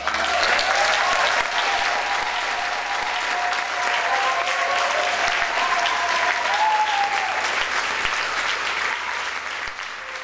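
Audience applauding steadily, with a few drawn-out cheering voices over the clapping.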